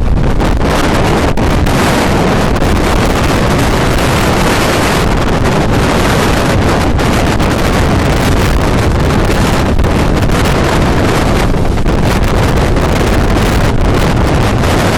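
Strong wind blowing across the microphone, a loud, steady rush with heavy low buffeting.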